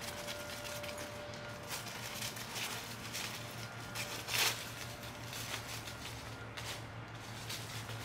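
Soft, irregular footsteps and rustling in dry fallen leaves, over a faint steady low hum.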